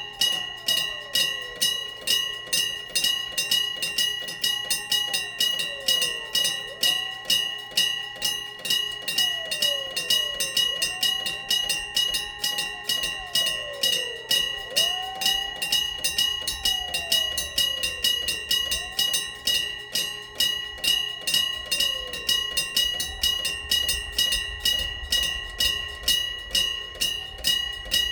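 Electric-bell (denshō-type) railway crossing bell striking steadily, about two strikes a second, each strike ringing on. A low rumble from the approaching train comes in about halfway and grows louder near the end.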